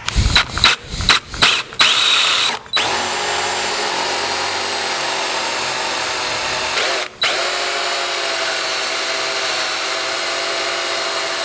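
Cordless drill boring holes in a walnut blank with a Forstner bit. It starts in a few short bursts over the first couple of seconds, then runs steadily, with a brief stop about seven seconds in.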